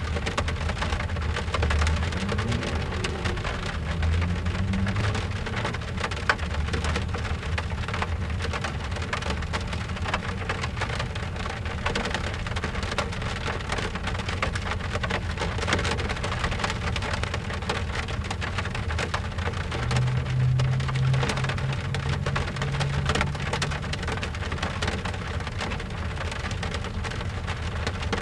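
Steady rain pattering on a car's window glass, heard from inside the car, with many separate drops ticking on the glass. A low rumble comes in a couple of seconds in and again about twenty seconds in.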